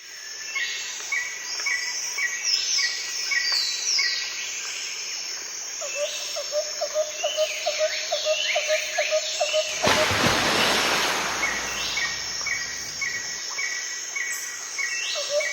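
Birds chirping and calling over one another, with many high downward-sweeping notes and short notes repeated at an even pace. From about ten seconds in, a rush of broad noise comes in for a few seconds.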